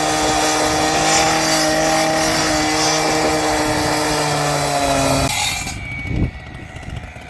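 Skid steer engine running hard at high revs with a steady engine tone that sags slightly in pitch, then drops away about five seconds in, leaving quieter rumbling and a few knocks.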